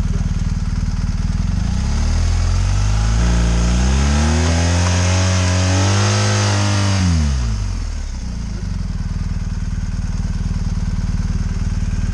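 BMW GS adventure motorcycle engine idling, then revved up for a few seconds, held high and let back down to idle as the bike is ridden out of a deep muddy rut.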